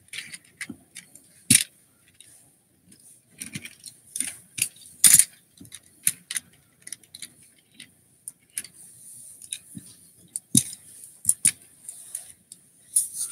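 Small plastic Transformers toy figures being handled and set down on a hard surface: irregular clicks, clacks and knocks, a few of them louder than the rest.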